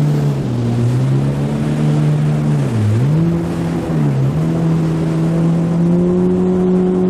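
Yamaha WaveRunner personal watercraft engine running at speed, with water and wind rush. Its pitch drops and comes back up twice, about three seconds in and again just after four seconds, then holds steady and slightly higher.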